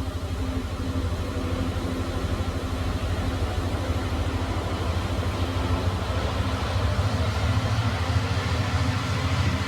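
Time machine sound effect: a steady, low mechanical drone that pulses rapidly and evenly, like an engine running hard.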